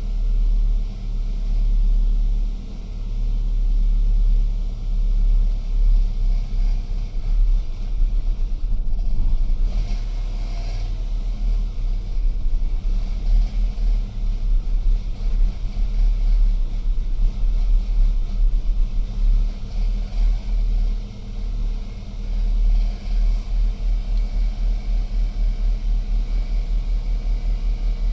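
BMW N46N 2.0-litre four-cylinder petrol engine idling after a cold start: a low rumble whose loudness rises and falls unevenly, the rough cold idle that a faulty MAP sensor caused.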